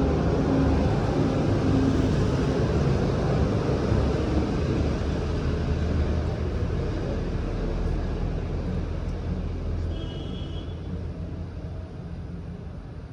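Hero Glamour motorcycle's single-cylinder engine running steadily with a newly fitted timing chain, gradually getting quieter over the last few seconds.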